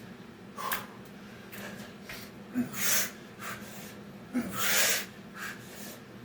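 A man breathing hard from the exertion of Navy SEAL burpee reps: two long, loud, forceful exhales about three and about four and a half seconds in, with shorter breaths between.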